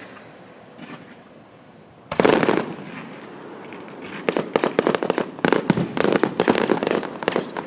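Fireworks going off: a loud bang about two seconds in, then a rapid run of crackling pops through the second half.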